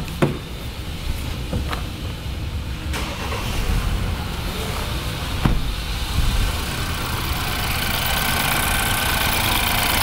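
BMW N20 2.0-litre turbocharged four-cylinder engine being started and running at idle, rough from a misfire on cylinder 4 (no spark there). A few sharp clicks come in the first half.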